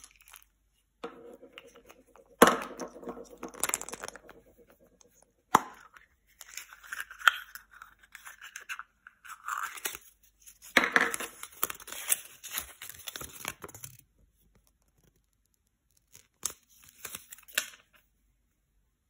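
Close-up handling of an opened Kinder Surprise egg. The broken chocolate shell and the plastic capsule come apart with a couple of sharp clicks, and the paper insert crinkles and rustles as it is unfolded. After a brief pause come a few small handling noises as the toy is taken out.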